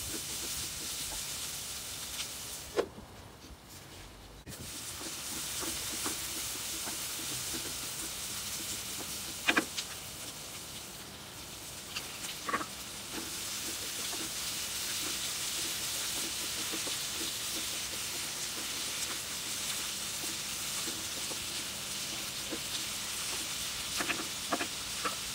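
Sliced onions sizzling steadily in a hot frying pan, with a few sharp knocks of a wooden spoon against the pan as they are stirred. About halfway through, shelled mussels are tipped in and the sizzling gets a little louder.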